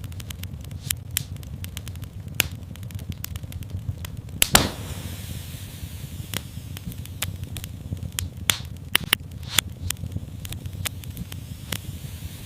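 Wood fire burning in a fireplace: a steady low rumble with many small crackles and an irregular scatter of sharper pops, the loudest about four and a half seconds in, followed by a brief hiss.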